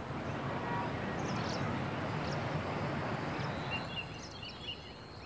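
Outdoor city ambience: a steady noise of distant traffic with small birds chirping now and then, the traffic noise easing off a little near the end.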